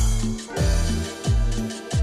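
Background music with a steady beat: a deep kick drum and sustained bass notes under hi-hat-like cymbal hits.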